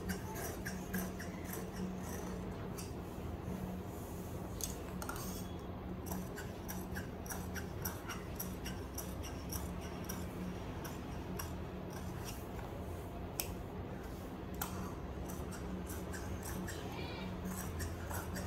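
Large tailor's shears cutting through fabric along a chalk line: repeated, irregular snips as the blades close and slide through the cloth, with a faint steady hum underneath.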